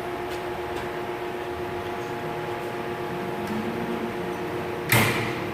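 Steady mechanical hum with several fixed pitches, like a running shop fan, and one sharp snap about five seconds in, as a plastic zip tie is cut off the AC hoses.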